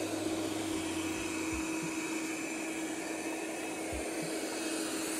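erabros LS1 LiDAR robot vacuum-mop running a spot clean: a steady rushing noise with a constant hum.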